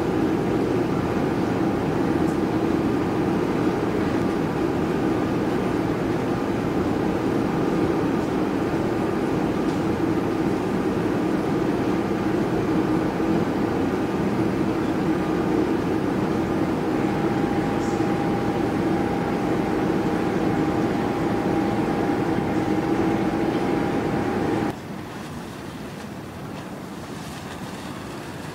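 Steady drone of a passing cargo vessel's engine, a low rumble with a few steady tones over it. About 25 s in it cuts abruptly to a quieter engine and water sound.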